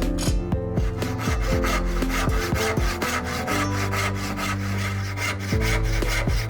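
Hand saw cutting wood in quick, even back-and-forth strokes, several a second, over background music with sustained low notes.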